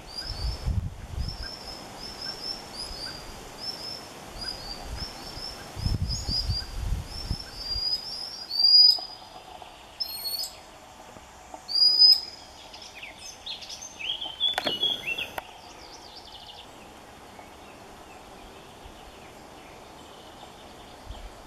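Common sandpiper giving piercing alarm calls: a quick series of short, high notes, then three louder single calls around nine to twelve seconds in. This is a parent bird's alarm while it guards newly hatched chicks hidden on the shore.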